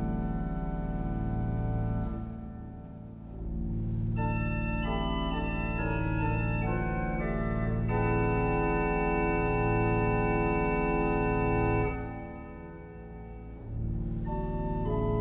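Three-manual organ playing slow, sustained chords over a steady low bass. The sound dies down twice between chords, about two seconds in and again around twelve seconds.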